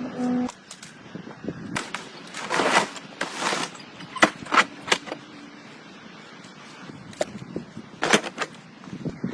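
Irregular sharp knocks and clicks, a dozen or so, with a couple of longer bursts of scraping or rustling noise about two to three and a half seconds in.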